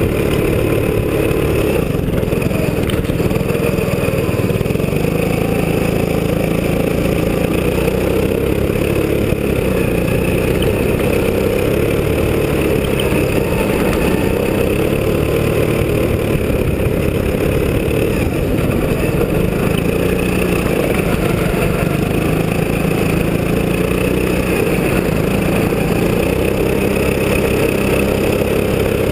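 Go-kart engine running at a fairly steady pitch as the kart is driven on snow, heard close up from a camera mounted on the kart.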